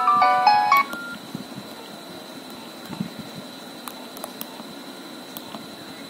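Nokia 7360 phone playing a short snippet of its ringtone through its loudspeaker as the ringing volume is set: a quick run of electronic notes lasting under a second that cuts off, followed by a few faint keypad clicks.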